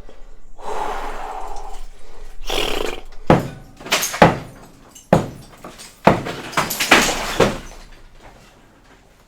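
Stuck wooden boards being wrenched off a wall: a scraping, creaking stretch, then a run of about seven sharp knocks and cracks as the wood is struck and breaks loose.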